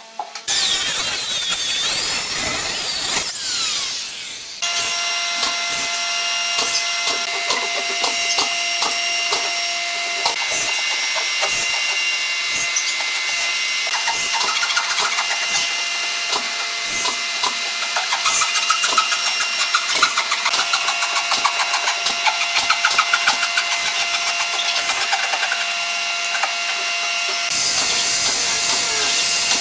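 Hand saw cutting a pine strip in repeated strokes over a steady hum, after a few seconds of loud rushing noise at the start. Near the end an angle grinder fitted with a sanding disc starts and runs steadily.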